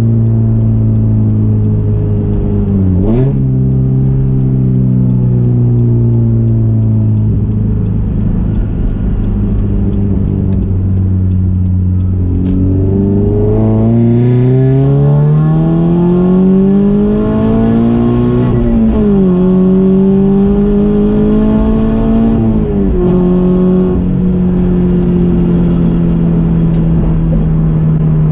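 Subaru BRZ's naturally aspirated FA20 flat-four through an equal-length header and Ace Laguna 100 exhaust, heard on the road: a steady low cruising note, then the revs climb for about five seconds past the halfway point, drop sharply at an upshift, and hold steady before falling near the end.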